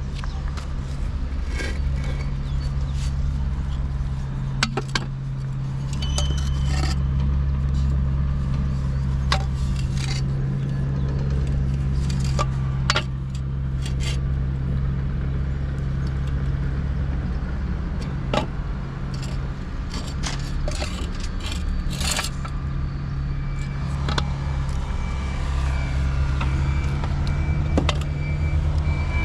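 A steady low engine hum, with scattered sharp clicks and metallic clinks over it.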